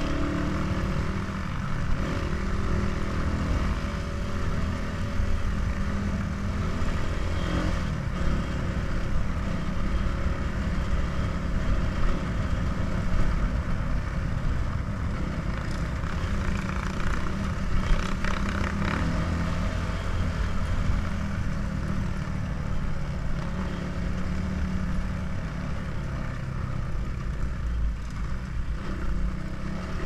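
Dirt bike engine running under throttle while riding a rutted dirt track, with a few knocks and rattles from bumps, the loudest about eighteen seconds in.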